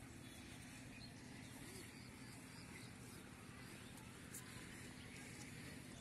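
Near silence: quiet riverside ambience with a steady low background hum and a few faint bird chirps.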